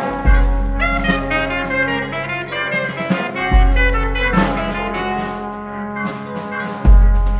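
Free-jazz style instrumental: saxophone and brass-like horns (plastic-pipe trumpets) play held and sliding notes over a drum kit. A deep low note sounds three times, about every three and a half seconds.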